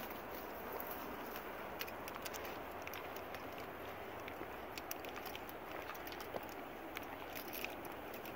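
Footsteps on a dirt trail scattered with dry leaves and pine needles, with many small irregular crunches and crackles over a steady background hiss.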